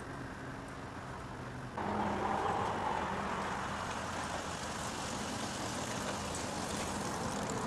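Small motorcycle engine running, jumping in loudness about two seconds in and staying up as the bike is ridden down the driveway toward the microphone.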